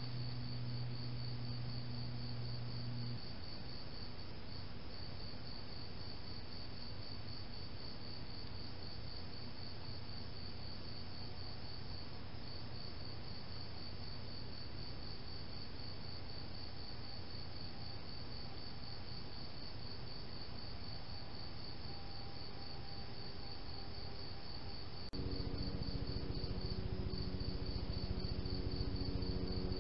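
Crickets chirping in a fast, even pulse on a summer night, with a low steady hum beneath that shifts abruptly about 25 seconds in.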